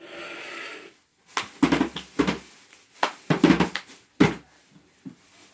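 A quick, uneven run of about a dozen knocks and thumps, after a second of soft hiss.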